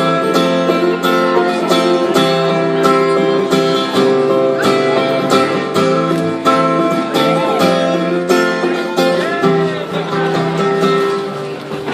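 Acoustic guitar strummed in steady chords, an instrumental break in a song with no singing.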